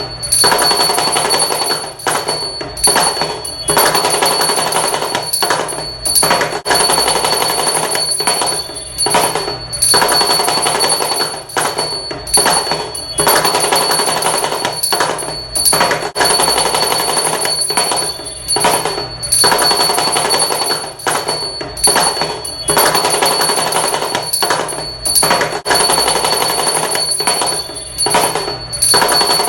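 Damru, the small hourglass-shaped hand drum, played in a fast continuous roll that pulses in waves about once a second, with a steady high ringing tone underneath.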